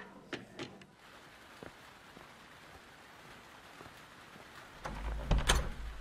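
Two light clinks of tableware, then a faint steady hiss of rain after about a second. Near the end a door opens with a few knocks and a low thud.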